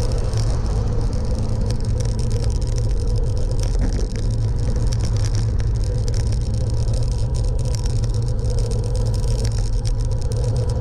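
Steady noise of a vehicle on the move: a heavy low rumble, like wind on the microphone, over a steady mechanical hum, with no clear changes.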